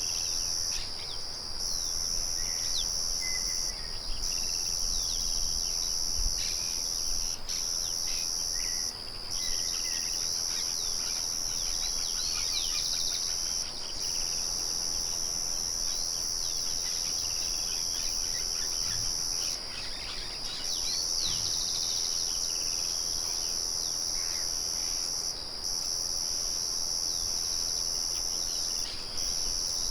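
Crickets trilling in a steady, high-pitched chorus that breaks off briefly every few seconds, with birds chirping over it.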